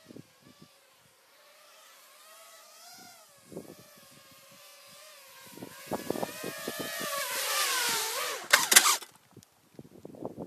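FPV quadcopter's brushless motors and propellers whining, the pitch wavering up and down and growing louder with throttle. Near the end there is a loud clatter as the quad comes down on the dirt, and the motors stop. Heavy wind buffets the microphone throughout.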